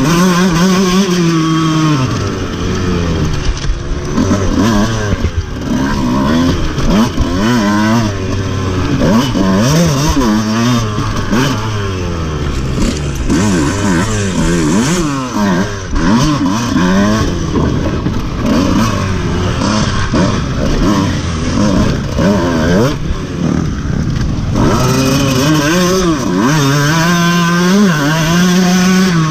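Dirt bike engine revving up and down over and over as it is ridden hard around an endurocross course, its pitch rising and falling every second or two. Heard close up from on the bike itself.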